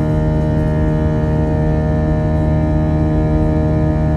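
Airbus A320 turbofan engine drone heard inside the cabin during climb-out: a loud, steady hum made of many unchanging tones.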